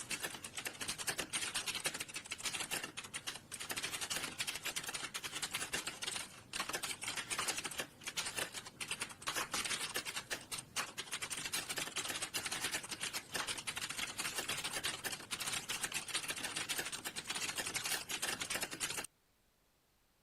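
Fast, continuous typing on a computer keyboard, a dense run of key clicks with brief pauses, that stops abruptly about a second before the end.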